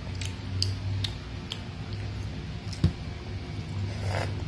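A child eating a balut: scattered small mouth clicks and smacks as he chews, a single thump a little before three seconds, and a short slurp about four seconds in as he sucks at the egg. A low steady hum runs underneath.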